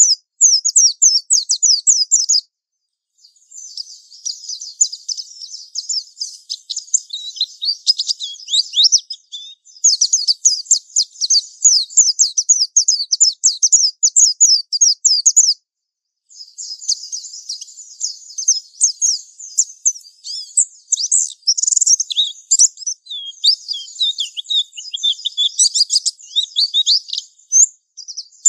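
Japanese white-eye (pleci) singing its long, rapid twittering 'ngalas' song: fast high-pitched strings of quick notes, broken off twice for under a second, about two and a half seconds in and about fifteen and a half seconds in.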